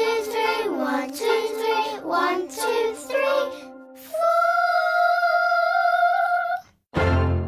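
A sung children's waltz song with musical backing, the melody moving in short phrases and then ending on one long held note about four seconds in. Just before the end, after a brief break, a new piece of music starts abruptly.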